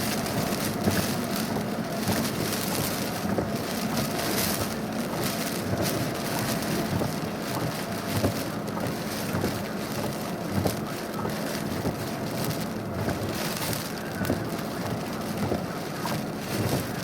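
Steady heavy rain, a dense hiss of drops striking a surface, with many small close impacts throughout.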